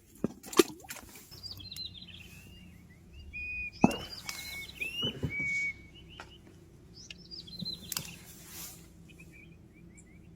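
A small songbird singing short, rapid chirping phrases in several bursts, with pauses between them. A few sharp knocks are heard as well, the loudest about four seconds in.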